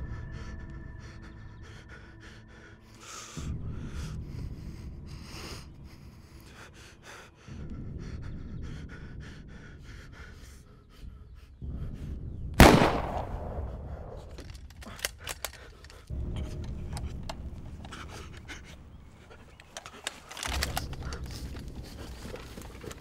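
A man's heavy breathing, swelling in slow waves a few seconds apart, broken about halfway through by a single loud gunshot, the loudest sound, followed shortly by a few sharp clicks.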